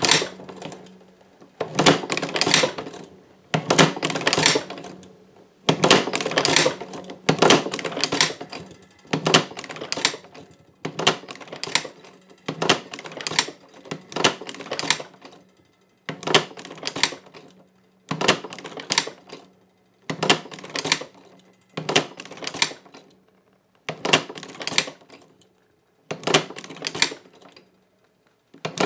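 Heavy-duty leather sewing machine stitching through thick holster leather in short bursts of rapid clacking, about one burst every two seconds, with a faint steady hum between them.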